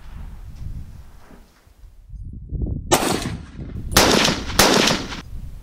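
Three gunshots from a long gun: one about three seconds in, then two more a second later, half a second apart.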